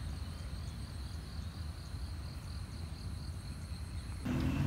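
Steady high insect trill, like a cricket, over a low outdoor rumble. A little over four seconds in, a louder motor-vehicle engine sound cuts in abruptly.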